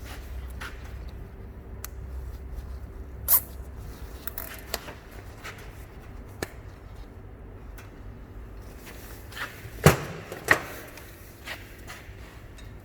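Plastic cable ties being fitted and pulled tight around the bottom of a new strut boot, with scattered clicks and a few sharp knocks of parts being handled, the loudest two about ten seconds in.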